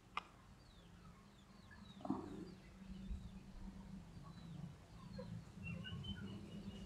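Faint chickens calling from the flock around, a scatter of short, high, falling peeps, with a faint low hum underneath.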